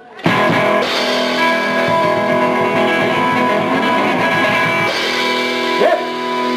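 Rock band with guitar playing the closing chord of the song: after a brief break, the chord is struck about a quarter second in and held ringing, with a short slide near the end.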